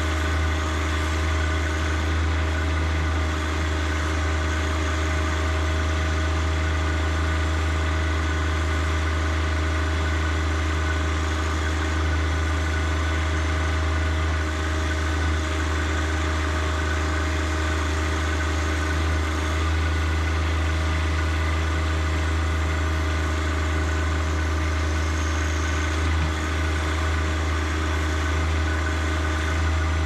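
John Deere 1025R compact tractor's three-cylinder diesel engine running steadily at an even speed, with a strong low hum.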